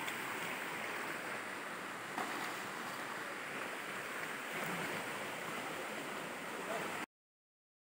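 Shallow stream flowing over stones and pebbles: a steady, even rush of water. It cuts off suddenly to silence about seven seconds in.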